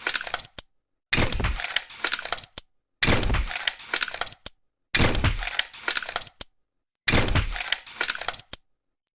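Tranquilizer pistol sound effect fired again and again, four shots about two seconds apart. Each is a sharp crack with a low thump, followed by a rattling tail that ends in a small click, with dead silence between shots.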